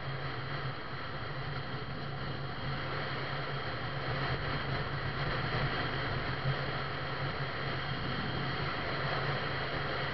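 Steady hum of a moving vehicle's engine over road and wind noise, growing a little louder about two and a half seconds in.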